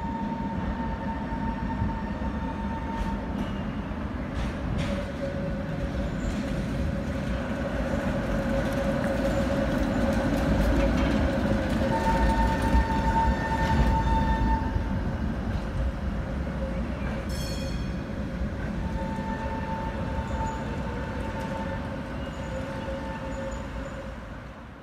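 A tram passing on its rails: a deep rumble of wheels that grows loud as it goes by and then fades, with steady whining tones that come and go. A short high ring sounds about two-thirds of the way through.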